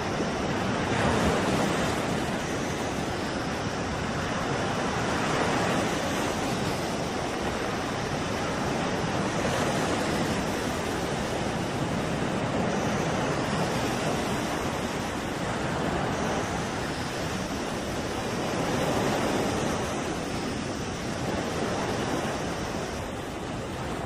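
Rough sea: waves breaking against a ship's side and washing over its deck, with wind. The rush of water swells and ebbs every few seconds.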